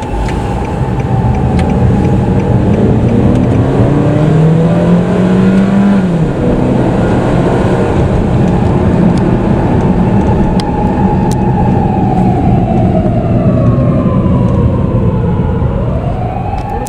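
Toyota Crown 220-series police patrol car on an emergency run, its siren sounding a steady high wail that sinks in pitch and climbs back near the end. Loud road noise sits under it, with a car engine revving up as it accelerates about two to six seconds in.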